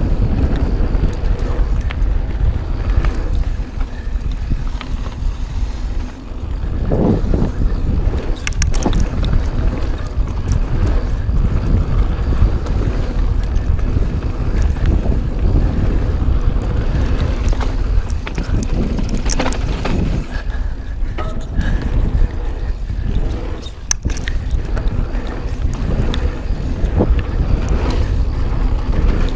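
Mountain bike riding a dirt trail, heard through a GoPro's microphone: steady low wind and tyre rumble, broken by scattered sharp clicks and rattles from the bike.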